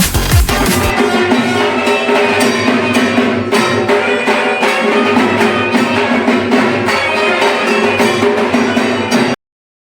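Background electronic music: a heavy bass beat for about the first second, then a stretch without bass of held chords over light ticking percussion, cutting off suddenly to silence about half a second before the end.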